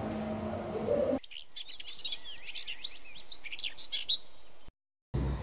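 Small birds chirping, a quick, busy tangle of short high chirps sliding up and down, starting about a second in after faint room tone and cutting off abruptly near the end.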